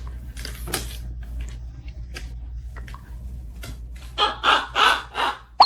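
Pet parrot squawking: four short, harsh calls about four seconds in, with a whistle starting right at the end, over scattered small clicks and rustles.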